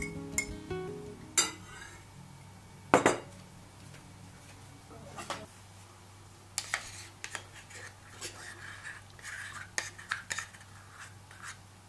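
Kitchen utensils against a bowl: a few sharp knocks as shredded chicken is tipped in from a container, the loudest about three seconds in, then a wooden spoon scraping and clicking in the bowl through the second half.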